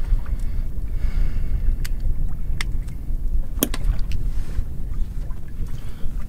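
Steady low rumble of wind on the microphone aboard a drifting boat, with a few sharp clicks and taps in the middle as a speckled trout is unhooked and handled.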